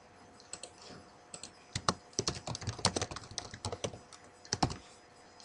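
Typing on a computer keyboard: a quick run of key clicks starting about two seconds in and lasting about three seconds, with a few lighter taps before it.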